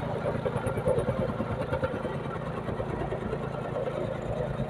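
Gasoline tamping rammer compacting loose soil: its small single-cylinder engine running steadily, with the rapid, even pounding of the rammer foot on the ground.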